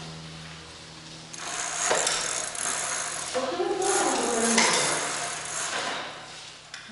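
Bicycle ridden across a concrete garage floor: tyres rolling and the rear freewheel ratcheting, starting about a second and a half in, with a few sharp clicks and some wavering squeaky tones in the middle.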